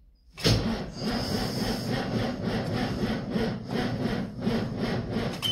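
Starter motor cranking a big Ford tractor's diesel engine from cold, a steady rhythmic churn of about three to four compression strokes a second that starts suddenly about half a second in, without the engine catching. A short high dashboard warning beep sounds near the end.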